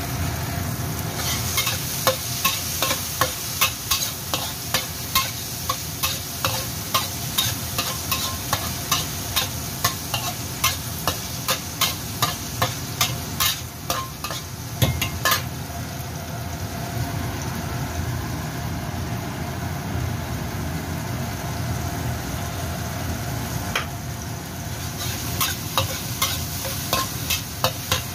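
Diced tomatoes sizzling in a wok as they are stir-fried, with the utensil knocking and scraping against the pan about twice a second. About halfway through the knocking stops, leaving the steady sizzle; it starts again near the end.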